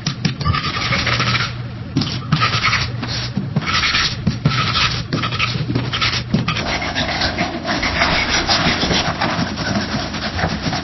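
Pencil writing on a wooden desk: scratchy graphite strokes in short runs with brief pauses between them, becoming steadier, more continuous writing about two-thirds of the way through.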